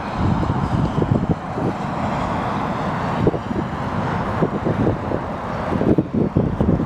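Wind buffeting the microphone: a loud, rumbling rush with irregular gusts, heaviest in the low end and stronger near the end.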